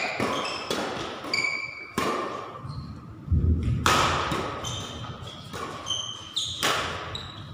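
Badminton rally: rackets smack the shuttlecock again and again while court shoes squeak and thump on the hall floor, with a heavy footfall thud about three seconds in.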